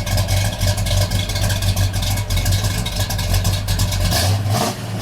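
Classic American muscle car engine running steadily at idle with a deep exhaust rumble and no clear rev. The lowest part of the rumble drops away a little after four seconds in.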